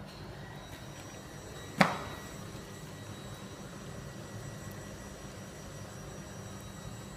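A metal dog bowl set down on a tile floor: one sharp clank about two seconds in that rings briefly, over a steady background hum.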